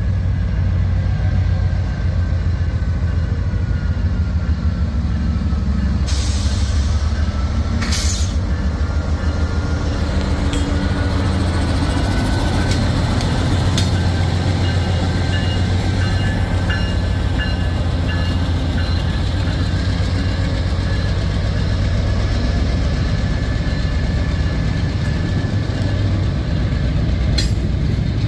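Norfolk Southern diesel freight locomotive passing close by, its engine rumbling steadily. A faint high squeal from the wheels runs underneath, and there are a couple of brief hisses about six and eight seconds in.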